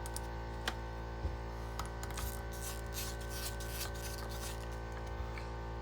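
Small bolts being set by hand into a transmission valve body cover: a few sharp light clicks, then a run of faint metallic ticks and rustling, over a steady background hum.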